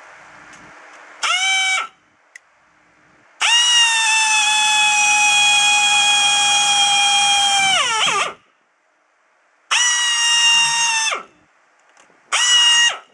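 Power drill run in four bursts: a short one, a long run of about five seconds, then two shorter ones. Each is a steady high whine that winds down in pitch as the trigger is released, drilling mounting holes through the metal frame of an exhaust-fan louver.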